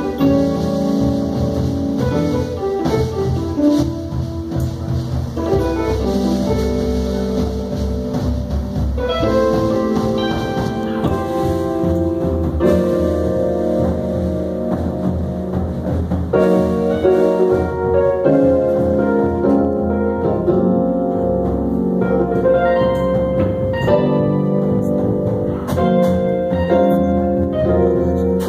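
Live band rehearsing a jazz-fusion tune, with electric keyboards holding chords that change every second or two over a steady, full low end.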